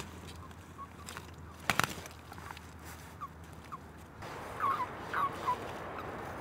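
Male common toads calling: short, squeaky chirps, a few scattered ones at first and then coming more often in the second half. A single sharp knock about a second and a half in.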